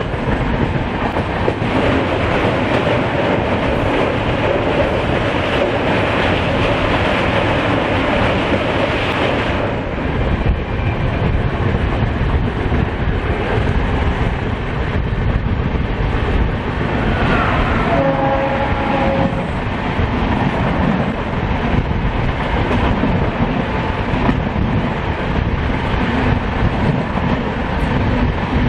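Running noise of an express passenger train at speed, heard from aboard: wheels rolling and clattering over the rail joints, with rushing air. About eighteen seconds in, a train horn sounds briefly.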